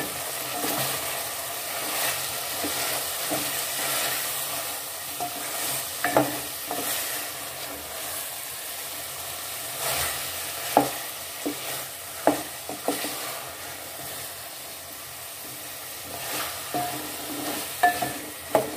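Ridge gourd pieces being stirred into frying masala with a wooden spoon in a steel pot: a steady sizzle with scattered knocks of the spoon against the pot.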